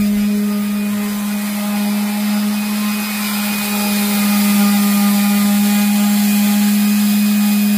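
Electric random orbital sander with an 80-grit 5-inch hook-and-loop disc running steadily while sanding a wooden board: a constant motor hum with the rasp of the abrasive on the wood.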